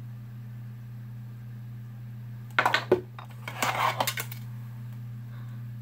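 Clattering and clinking of small hard objects being handled: a quick cluster about two and a half seconds in and a longer one about a second later, over a steady low hum.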